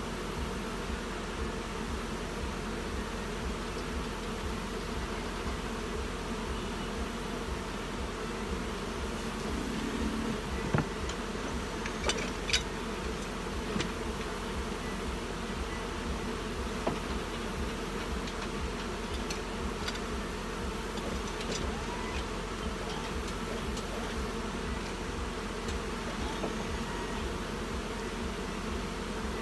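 Steady buzzing of many honey bees flying around the hive boxes, over a steady low throb. A few sharp knocks stand out near the middle.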